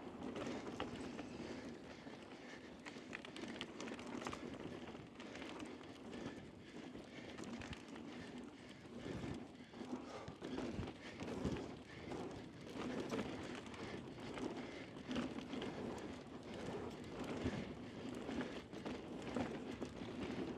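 Mountain bike descending fast on a dusty dirt trail: a continuous rush of tyre noise, with the bike rattling and knocking irregularly over bumps and roots.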